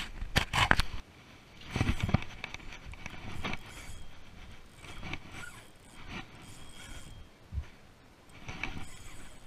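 A few sharp knocks near the start, then irregular rustling and rubbing of a jacket sleeve against the microphone while a spinning reel is cranked.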